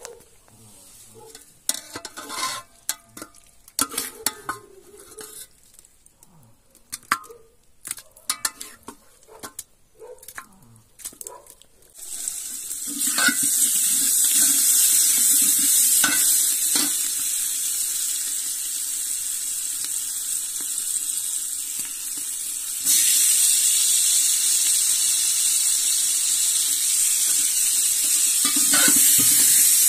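Metal utensils clinking and scraping in an aluminium cooking pot, then from about twelve seconds in a loud steady sizzle as green chillies and garlic fry in hot oil, stirred with a metal spoon. The sizzle jumps louder again a little past two-thirds of the way through, when tomatoes and more vegetables are in the pot.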